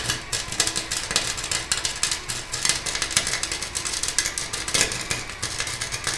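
Electric arc welder crackling and sputtering steadily as a bead is laid, the arc struck abruptly at the start.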